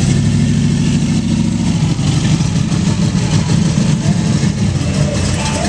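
Supercharged V8 of a blown street car, its blower sticking up through the hood, running with a loud, steady low rumble as the car pulls slowly away.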